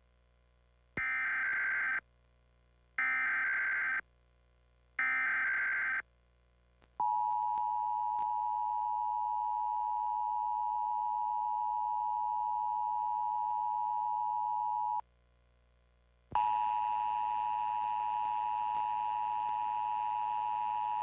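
Emergency Alert System tones: three one-second bursts of SAME digital header data about a second apart, then the steady two-tone EAS attention signal (853 and 960 Hz) for about eight seconds. After a short break the attention tone sounds again for about five seconds with hiss under it.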